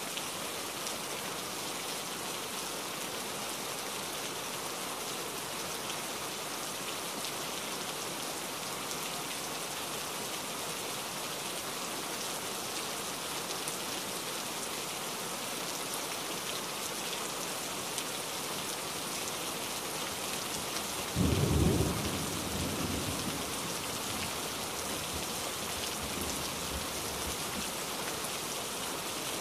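Steady heavy rain falling. About two-thirds of the way through, a sudden low clap of thunder breaks in and rumbles away over several seconds.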